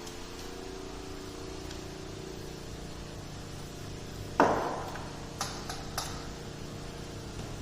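A sharp knock with a short ring, like a hard object striking tile or glass, followed by three lighter clicks, over a steady low machine hum.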